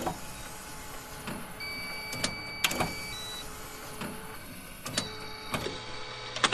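Robot start-up sound effect: a steady mechanical whir with scattered clicks. A high electronic beep is held for about a second and a half, then comes a short second blip and, near the end, a fainter high tone.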